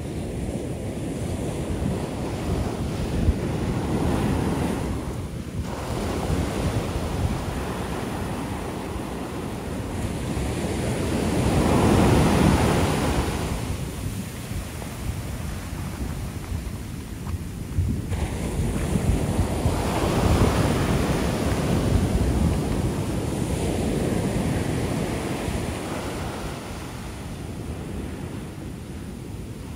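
Ocean shore break: waves breaking close in and foamy surf washing up the sand, a steady rushing that swells to its loudest as a wave breaks about twelve seconds in and again around twenty seconds.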